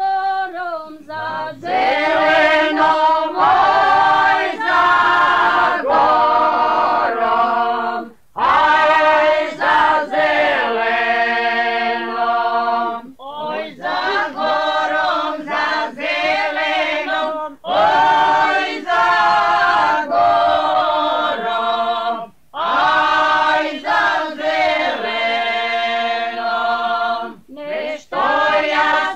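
A folk singing group sings a traditional Slavonian song unaccompanied, in several voices at once. The phrases last about four to five seconds, each followed by a short break for breath.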